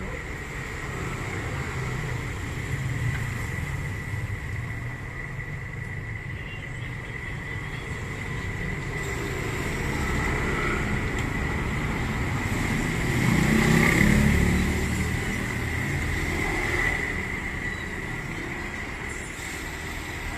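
Motor vehicle running with road noise: a continuous low rumble that swells to its loudest about two-thirds of the way through, over a steady high whine.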